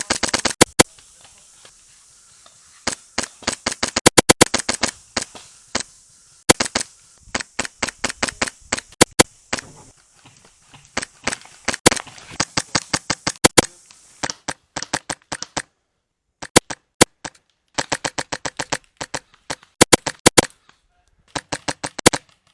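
Polarstar F2 high-pressure-air airsoft rifle firing, sharp pops in quick strings and bursts with short pauses between them, turning to sparser single shots and short bursts in the later part.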